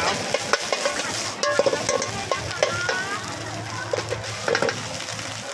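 Egg frying and sizzling in a hot wok, with a metal wok ladle scraping and clacking against the pan as it is stirred.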